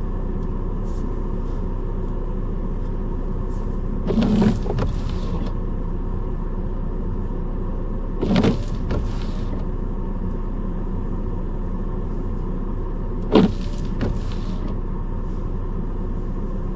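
Car engine and road noise heard from inside the cabin, steady, with three brief louder sounds about four to five seconds apart, each followed by a softer one about half a second later.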